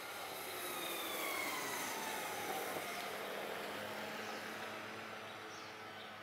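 A vehicle passing by: its whine slides down in pitch as it goes past about a second in, then fades away.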